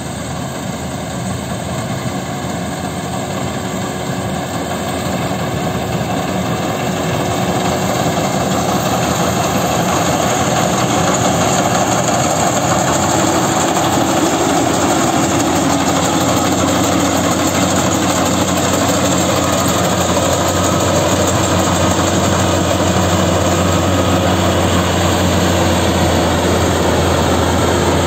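GAM Ruilong tracked combine harvester running while cutting paddy rice: a steady drone from its engine and harvesting machinery, growing louder over the first dozen seconds as it comes close, then holding steady.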